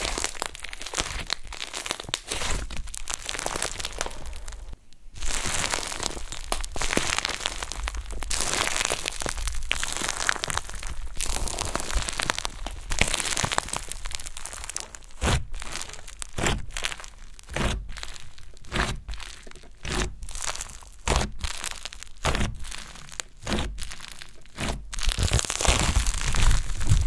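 Crunchy yellow foam-bead slime being squeezed and kneaded by hand, crackling and crunching. From about halfway, separate sharp pops come about twice a second as fingers press into it and pull it apart, and they get louder near the end.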